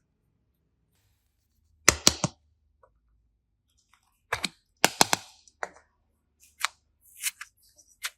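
A series of sharp snaps and clicks in small clusters: a quick group of three or four about two seconds in, another pair of groups around the middle, then single clicks near the end.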